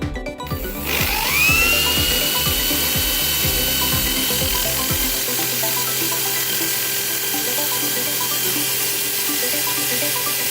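Hammer drill spinning up about a second in, its whine rising and then levelling off at full speed, running steadily as it turns the magnet rotor of a washing-machine motor being tested as a generator. Background music plays under it for the first five seconds.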